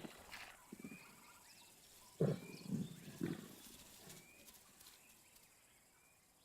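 A lion feeding in a tree gives three short, low growls about half a second apart, a little past two seconds in. A bird's short rising chirp repeats in the background.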